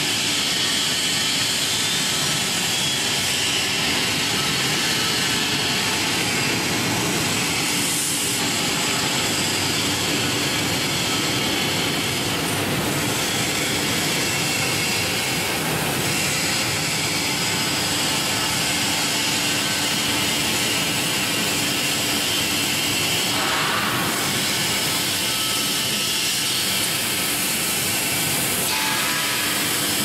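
Industrial strawberry washing machine running: a steady hiss of water churning in the wash tank and spraying from the nozzle bars, with a low steady hum from the machine underneath.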